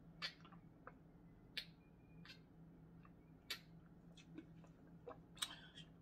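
Faint swallowing clicks of a person gulping water from a large tumbler, about four of them a second or two apart, over near silence.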